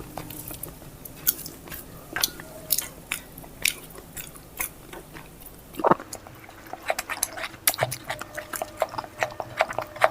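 Close-miked chewing of food: wet mouth clicks and lip smacks at an irregular pace, with one louder smack about six seconds in and quicker, denser chewing near the end.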